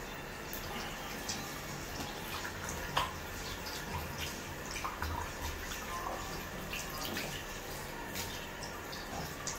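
Scattered small clicks and taps over a steady background hiss, with one sharper click about three seconds in.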